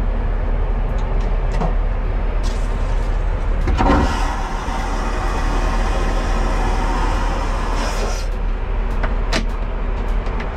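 Airliner vacuum toilet flushing: a sudden loud rushing whoosh about four seconds in that lasts about four seconds, then stops, over the steady drone of the aircraft cabin. A sharp click near the end as the lavatory door latch is worked.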